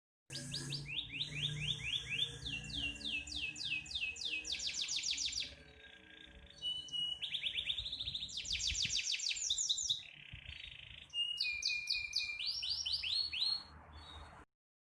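A songbird singing in phrases of rapid, repeated downward-sweeping whistled notes, several a second, with short pauses between phrases.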